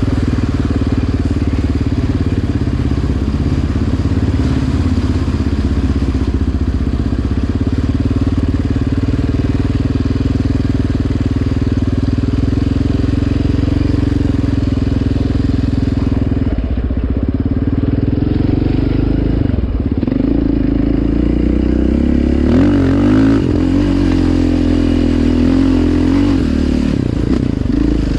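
Yamaha Raptor 700R quad's single-cylinder four-stroke engine running under way on a dirt trail, its pitch fairly steady at first. Past the middle the engine drops back briefly, then revs up and down with the throttle near the end.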